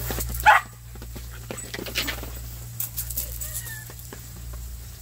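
A dog barks once, sharply, about half a second in, then a broom's bristles brush and tap across a plastic outdoor mat in short scratchy strokes as the dog snaps at it.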